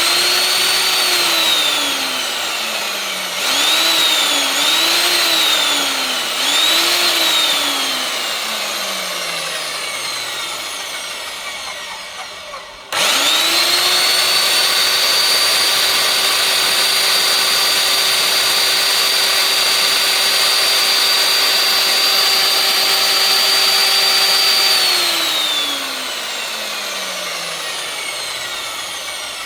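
Electric motor of a diamond concrete core drill switched on and off repeatedly: it whines up to speed and then coasts down with a falling whine, is restarted briefly three times, and a little before halfway is started again and runs steadily for about twelve seconds before winding down near the end.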